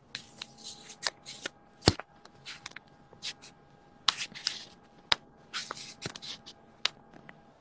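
Handling noise from a phone held close to the microphone: irregular rustling and sharp clicks as it is moved and gripped, over a faint steady tone.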